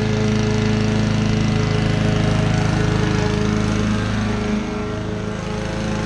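Honda HRU216D self-propelled lawn mower's four-stroke engine running steadily while cutting grass, turning a little quieter about four and a half seconds in.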